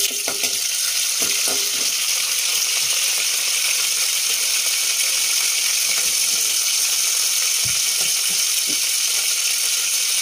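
Hot oil sizzling steadily around dried red chillies, mustard seeds and curry leaves frying for a tempering, with a few faint scattered pops.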